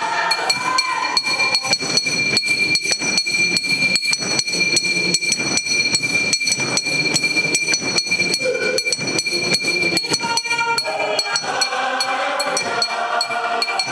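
Fast, steady rhythmic clicking or clapping, about four to five strokes a second, over a steady high tone, with voices or singing coming in near the end.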